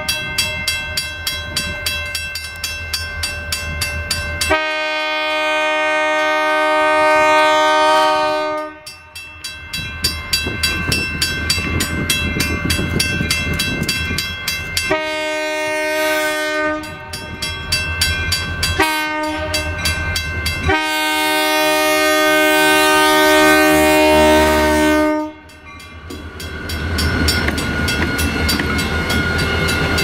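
Diesel freight locomotive's fouled air horn sounding a series of blasts, mostly long with a short one between. In places the chord buzzes and sputters instead of holding a clean tone. Near the end the train's rumble and wheel noise take over.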